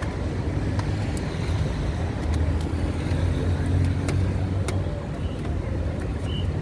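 Low street traffic rumble, with a heavy vehicle's engine swelling louder around the middle, and a few light clicks over it.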